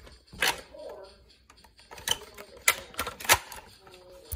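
Plastic Nerf-style foam-dart blaster being handled: about six sharp clicks and clacks at uneven gaps, the loudest about three seconds in.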